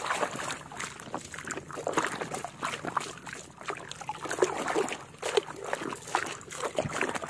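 Muddy water sloshing and splashing in a plastic basin as a plastic toy car is swished and scrubbed through it by hand, in irregular strokes.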